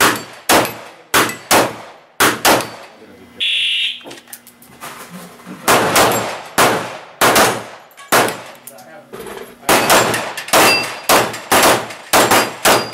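Handgun fired in rapid strings at steel falling plates: about twenty sharp shots, with metallic clangs and ringing of plates being hit. The shooting pauses for about three seconds after the first strings, with a brief high tone in the gap, then resumes in fast bursts.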